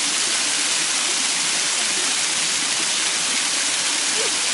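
Waterfall close at hand: a steady, even rush of water falling down a rock face and splashing.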